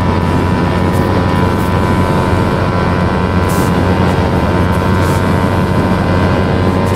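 Small sport motorcycle's parallel-twin engine running at a steady, high road speed on the highway, its pitch holding level, over a haze of wind noise.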